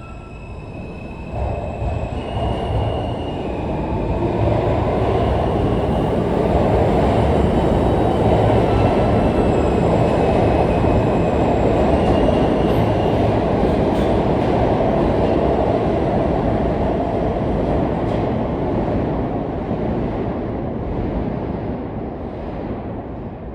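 R160 subway train running through the station: a loud steel-wheel rumble that builds over the first few seconds, holds, then fades near the end, with faint high wheel squeals now and then.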